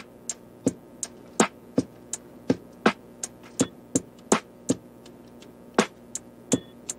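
Background music: a sparse drum-machine beat, about two to three hits a second, over a faint sustained backing.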